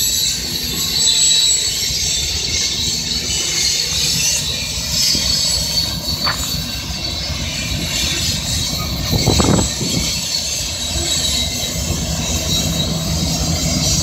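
Freight train of covered hopper cars rolling past, steel wheels squealing on curved track with some clickety-clack. Near the end, the rear diesel helper locomotives pass and a steady low engine hum comes in.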